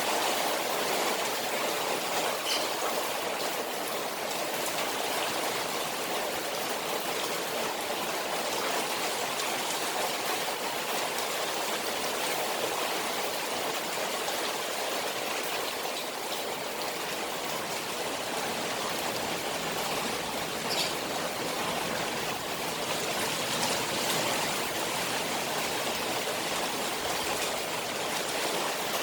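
Rain falling on a koi pond, a steady, even rush of water without a break.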